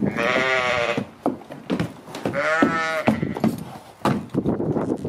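Two quavering livestock calls, each just under a second long and about two seconds apart, with scattered short knocks between them.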